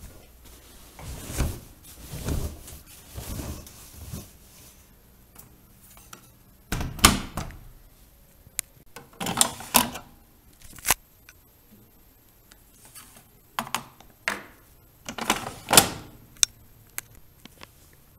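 Bauknecht WAE8575 front-loading washing machine early in a quick wash: irregular clunks, clicks and short swishes as the drum turns the laundry.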